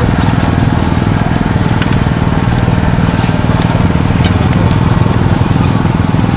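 A small engine running steadily, with light clicks and clatter over it.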